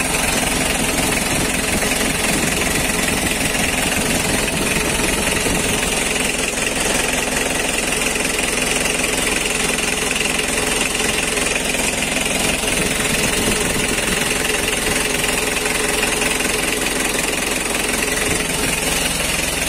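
Mitsubishi L300's 2.5-litre four-cylinder diesel engine idling steadily, heard close up in the engine bay.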